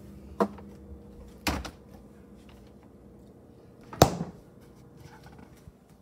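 Refrigerator handled and its door shut: two light knocks in the first second and a half, then the door closes with a sharp thud about four seconds in. A faint steady hum runs underneath.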